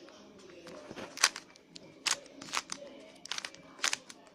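Plastic 3x3 Rubik's Cube layers being twisted through a move sequence: about six sharp clicks and clacks at irregular intervals, starting about a second in.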